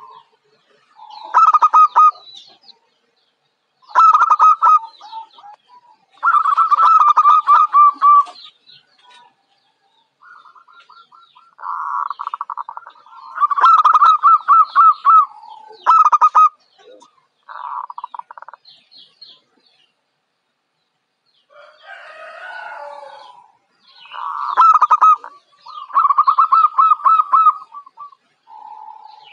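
Young zebra dove (perkutut, Geopelia striata) singing: repeated phrases of fast, pulsing coos with short pauses between them, about a dozen phrases in all.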